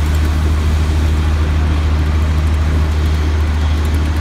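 Fire engine's diesel engine running steadily, a loud low drone while it drives the pump feeding the hose lines.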